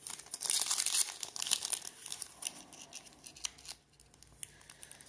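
Wrapper of a Leaf football trading-card pack being torn open and crinkled: a dense crackle of tearing and rustling for about the first three seconds, then a few light rustles and clicks.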